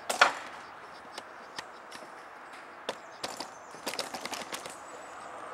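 A sharp knock about a quarter second in, then footsteps and scattered clicks on a hard floor.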